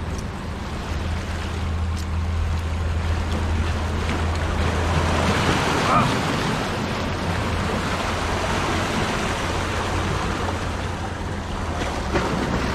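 Sea waves surging and washing over jetty rocks, swelling as a wave breaks about halfway through, with a single sharp knock at its peak. A steady low hum runs underneath.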